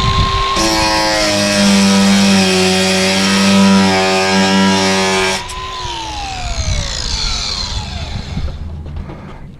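Electric angle grinder running under load against metal, a dense whining hum with a hiss on top, then released about five seconds in and winding down, its whine falling steadily in pitch as the disc coasts to a stop.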